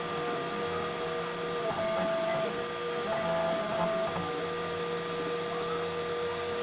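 3D printer printing: its stepper motors sing at a few steady pitches that switch back and forth every second or so as the moves change, over a steady fan hiss.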